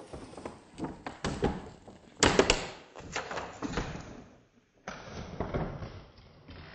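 Toy packaging being handled: clear plastic wrapping crinkling and a cardboard box knocking, with scattered thuds and the loudest rustle about two seconds in.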